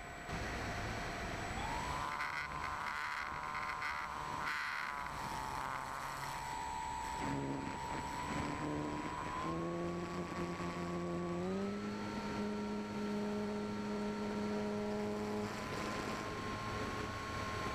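Onboard sound of an E-flite Apprentice RC trainer's electric motor and propeller whining steadily. Its pitch steps up several times as the throttle is advanced, with wind rushing over the microphone in the first few seconds.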